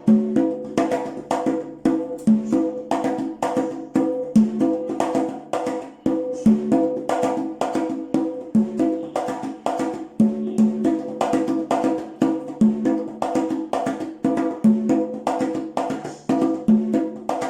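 Congas played with bare hands in a steady repeating pattern, several strokes a second. A stronger, lower stroke comes round about every two seconds. The pattern shows off the campaneo, a bell-like stroke made with the fingertips and a cupped hand.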